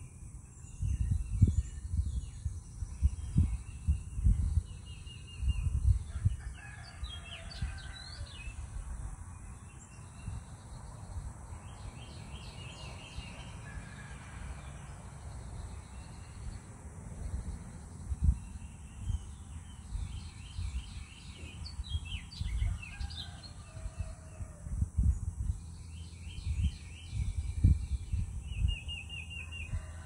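Birds calling and chirping in repeated short note series, with domestic fowl such as chickens among them. Irregular low thumps and rumble run underneath.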